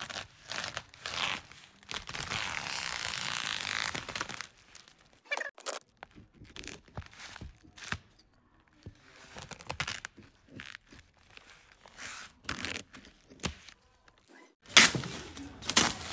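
Scissors cutting and tearing open a woven plastic sack wrapped round a cardboard box, with snips, rustling and tearing. There is a longer stretch of tearing about two seconds in and louder crinkling and tearing near the end.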